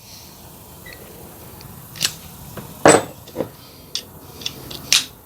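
Hand tools being handled on a bench: about half a dozen sharp clicks and knocks at uneven intervals, the loudest about three seconds in.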